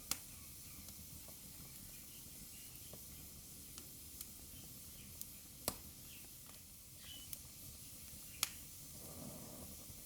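Wood fire burning in a fireplace: a faint steady hiss with scattered sharp crackles and pops. Three pops are louder than the rest, the loudest about eight and a half seconds in.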